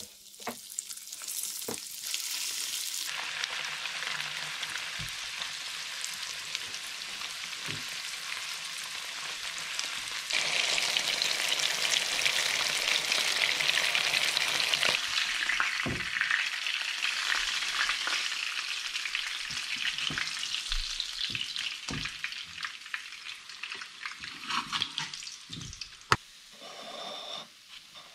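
Hot oil sizzling steadily as floured mackerel and horse mackerel fillets shallow-fry in a frying pan, with a few light knocks. The sizzle grows louder about ten seconds in and dies down near the end.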